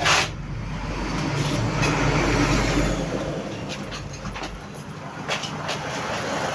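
Clipper blades being handled and cleaned: a sharp knock at the start, then a few seconds of rubbing noise over a low rumble, with a few light clicks later.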